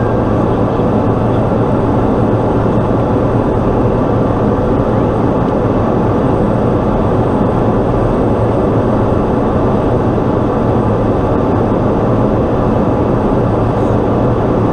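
Steady drone of a Pilatus PC-12's single Pratt & Whitney PT6A turboprop engine and propeller, heard inside the cockpit during the descent on approach to land.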